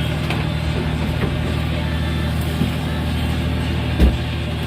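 Fishing boat's engine running steadily with a low drone. A single thump about four seconds in.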